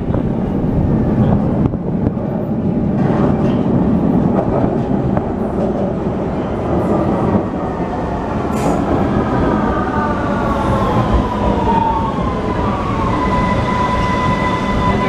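Vienna U-Bahn metro train pulling into the platform and braking to a stop: a steady rumble of wheels on track, with a whine that falls in pitch as it slows from about eight seconds in and settles into a steady high tone near the end.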